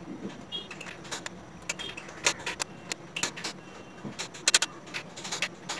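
Plastic parts of a photocopier's paper tray clicking and knocking as they are handled and fitted, a series of irregular light clicks that come thicker near the end.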